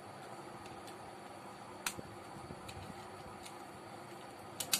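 Small screwdriver working on the screws of a Samsung Galaxy J7 phone's frame: a few faint ticks and sharp metal clicks, one about two seconds in and a quick pair near the end, over a steady background hiss.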